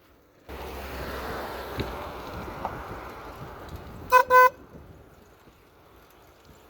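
Electric car horn fitted to a bicycle giving two short beeps in quick succession about four seconds in, over a steady rushing noise that starts half a second in.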